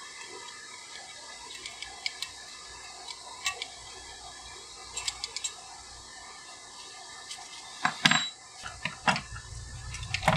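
Light, scattered metallic clicks and clinks of small steel valve parts and hand tools being handled on a transmission valve body, with a few louder knocks and clatter about eight seconds in.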